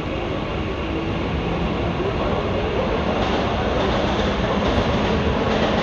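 Mumbai suburban electric local train (Western Railway EMU) running past along the platform, a steady rumble of wheels on rails that grows gradually louder.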